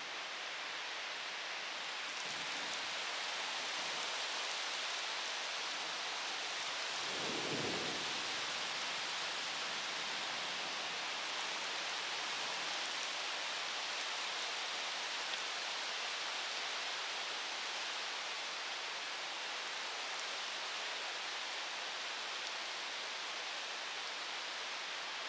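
Heavy rain falling steadily during a thunderstorm, picked up by a front-door security camera's microphone. A brief low rumble of thunder comes about seven seconds in.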